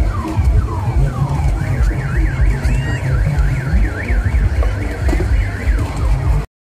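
An electronic alarm sounding, like a car or motorbike alarm: a run of quick falling sweeps, then from about two seconds in a fast up-and-down warble of about four cycles a second that stops about five seconds in. Loud music with a heavy bass plays under it, and all sound cuts out for a moment just before the end.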